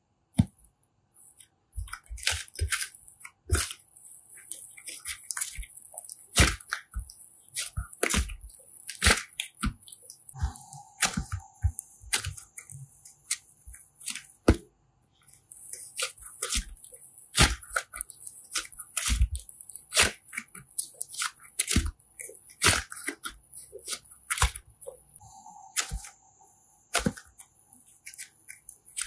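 Hands working slime and small toys close to the microphone: irregular sharp crackles and clicks, several a second, some much louder, with a short pause about a second in and another near the middle.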